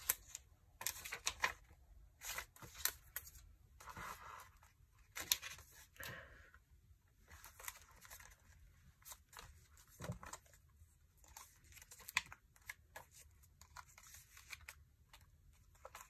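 Paper pages of a chunky handmade junk journal being turned and handled: faint, irregular rustling and flicking of paper, with a few sharper page flicks.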